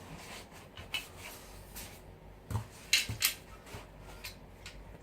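Parts of a folding laptop table being handled during assembly: light rubbing and rustling with a few sharp knocks and clicks, the loudest cluster about two and a half to three and a half seconds in.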